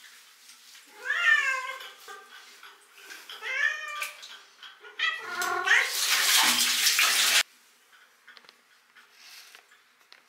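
Wet tortoiseshell cat meowing while being bathed: three drawn-out meows that rise and fall in pitch, the last one wailing under a loud rush of spraying water that cuts off suddenly about seven seconds in.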